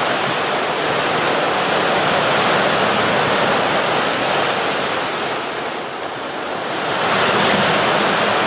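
Lake Erie storm surf, driven by gale-force winds, breaking and washing over a flooded concrete dock, with wind buffeting the microphone. The surf eases a little about halfway through and surges again.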